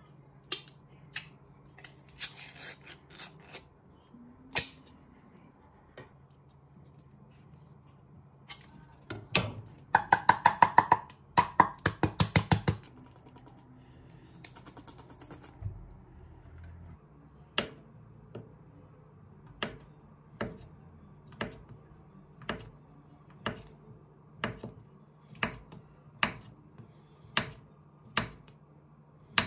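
Kitchen knife slicing a block of Spam on a wooden cutting board, the blade knocking the board about once a second in the second half. Before that, a quick run of sharp metallic clicks as the metal Spam can is opened and handled.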